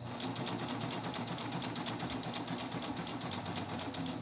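Serger stitching a cover hem stitch, its needles running at a steady rhythm of about eight stitches a second, starting a moment in.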